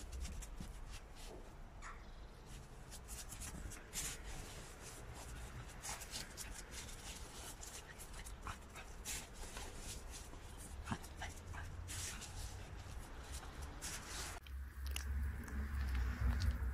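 Dog running and playing in snow: scattered short crunches of its paws, with faint dog noises among them.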